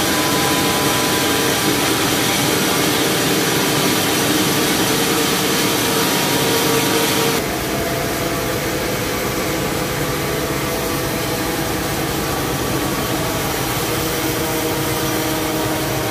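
Large band sawmill running steadily, its blade cutting through a cempedak log on the carriage. About seven seconds in, the sound changes suddenly and drops a little, then the mill keeps running steadily.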